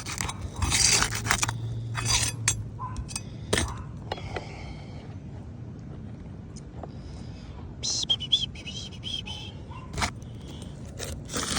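A metal pry tool scraping and clinking against asphalt roof shingles as a damaged shingle is worked loose for replacement. There are several short bursts in the first few seconds, then a brief high wavering squeak about eight seconds in and a sharp click near the end.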